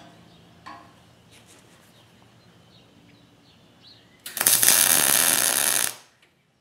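MIG welding arc laying a short tack weld on a steel frame joint: a loud, steady crackling hiss with a low buzz that starts about four seconds in, lasts about a second and a half and cuts off suddenly. Faint bird chirps before it.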